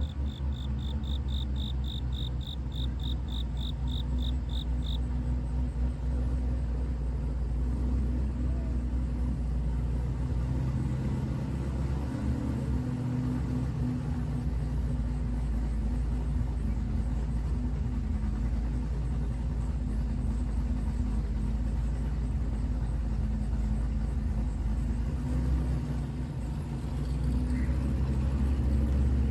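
Chevrolet Camaro ZL1's supercharged V8 running as the car is driven, a steady low rumble. A rapid electronic beeping, about three or four beeps a second, sounds over it for the first few seconds.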